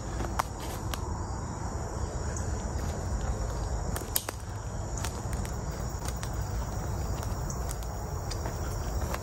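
Footsteps through dry leaf litter and twigs, with sharp snaps of sticks now and then, over a steady chorus of insects.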